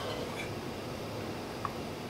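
A metal ladle scooping plum jam in a stainless pan, giving a couple of faint light ticks over a low steady hiss.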